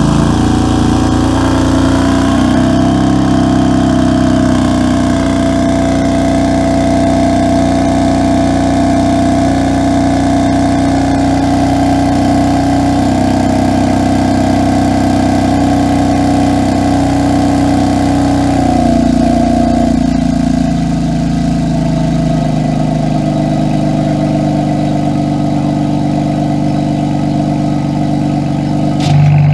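BMW F82 M4's twin-turbo inline-six idling steadily after a start with the exhaust valves closed; about two-thirds of the way through the idle steps down slightly in pitch.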